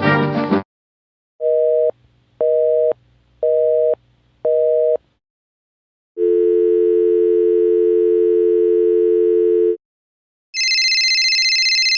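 Telephone line tones: a busy signal of four short two-note beeps about a second apart, then a steady dial tone for about three and a half seconds. Near the end a fluttering electronic telephone ring begins.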